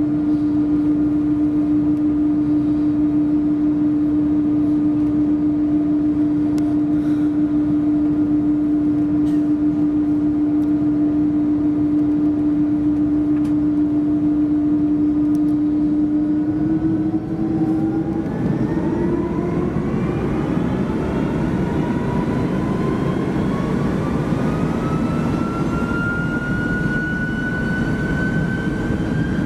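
Airbus A330-200's Pratt & Whitney PW4168A turbofans heard from inside the cabin: a steady hum with a strong drone, then about seventeen seconds in the engines spool up for takeoff, a whine rising steadily in pitch over a growing rumble.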